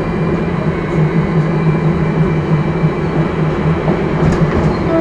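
Steady low mechanical rumble from a running vehicle, with a few faint clicks near the end.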